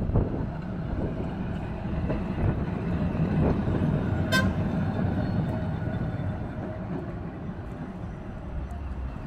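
Blackpool heritage tram running by with a low rumble, loudest in the middle and easing off, with wind buffeting the microphone. A single short toot of the tram's warning signal sounds about four seconds in.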